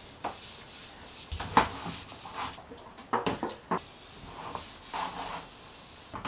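A long sapele wood strip being handled and wiped down with a cloth of wipe-on polyurethane: soft rubbing along the wood, broken by light knocks of the strip against a plastic tub, the sharpest about one and a half seconds in and a quick cluster around three seconds in.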